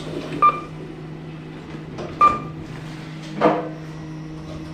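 Two short beeps from the push buttons of a Kone Ecodisc lift with KS300 fixtures as they are pressed, then a single knock about three and a half seconds in, over a steady low machine hum.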